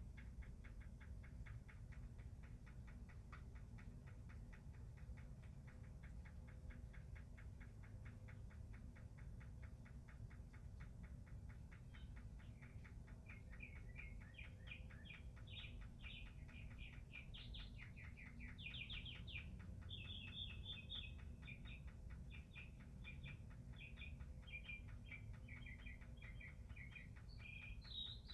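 Faint bird calls: quick repeated chirping phrases that begin about halfway through, over a fast, even ticking and a low steady rumble.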